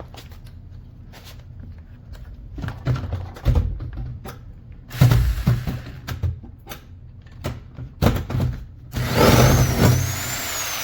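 Hammerhead 4.8-amp jigsaw: knocks and thumps as it is handled and tried, then about nine seconds in the motor runs loud with a whine that rises and falls. The blade does not stay in the saw's clampless holder but pops out.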